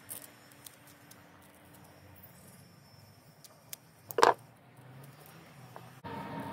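Scissors snipping feather vanes for arrow fletching: a few light, sharp clicks, then a single much louder clack about four seconds in. Near the end a louder steady background noise with a constant high hum sets in.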